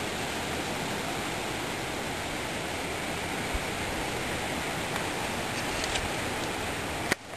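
Steady, even hiss of outdoor background noise with a few faint clicks, cutting off abruptly near the end.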